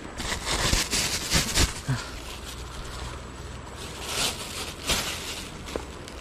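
Thin plastic carrier bag crinkling in bursts as it is handled and shaken open.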